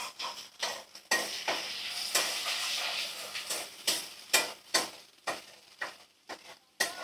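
A steel spatula scrapes and knocks against a kadai while diced potatoes and peas are stirred in hot oil, giving sharp clicks about two or three times a second. The oil sizzles under the first few seconds, then fades.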